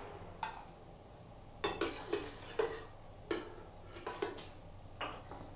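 A steel slotted spoon (skimmer) clinking and knocking against a steel pot and a bowl as boiled potato chunks are scooped out and tipped in: about eight or nine light, short knocks at irregular intervals, the loudest a pair around two seconds in.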